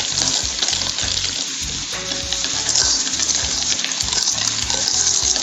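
Chocolate cupcake batter being whisked by hand in a bowl, a steady wet swishing hiss, with background music underneath.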